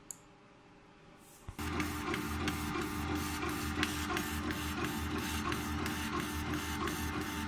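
SUNA 40W CO2 laser stamp engraver starting an engraving run about a second and a half in: its stepper-driven laser head shuttles back and forth over a steady low hum, with a regular click about three times a second. A single short click sounds just before it starts.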